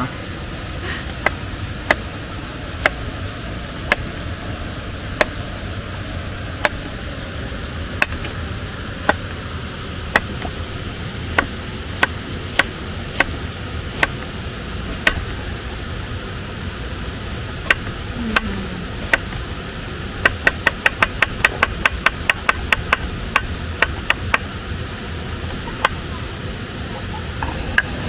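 Knife chopping onion on a cutting board: single sharp chops about once a second, then a quick run of about four chops a second for four seconds, over the steady rushing hiss of a nearby waterfall.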